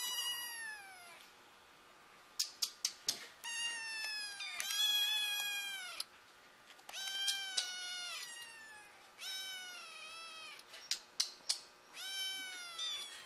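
Kittens meowing over and over: about six drawn-out, high, whiny meows, several sliding down in pitch. A quick run of sharp clicks comes about two and a half seconds in and again near the end.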